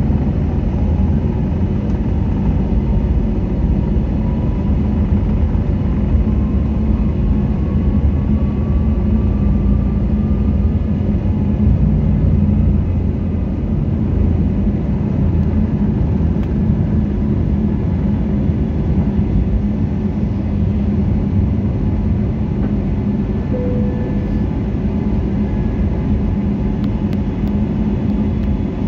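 Cabin noise of an Airbus A320-family airliner taking off: the jet engines run at takeoff power with a steady, loud rumble, and a whine rises in pitch over the first ten seconds or so as the engines spool up and the plane accelerates down the runway.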